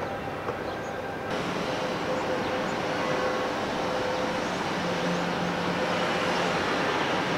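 Steady mechanical hum with several held tones, the outdoor sound of machinery around a harbour; about a second in it grows louder and hissier, and stays so until near the end.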